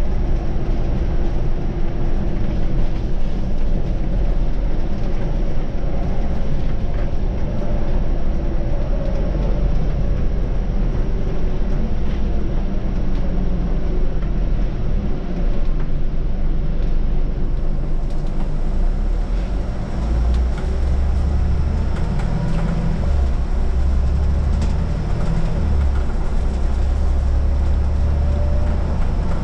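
Scania city bus on the move, heard from the driver's seat: a steady engine and road rumble with a faint whine that slides up and down in pitch as the bus changes speed. The low rumble grows heavier in the second half.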